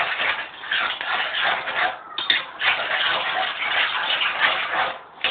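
A spoon stirring frying mince, onions and mushrooms in a pan: a scraping, rustling noise that breaks off twice. A short metallic clink rings about two seconds in.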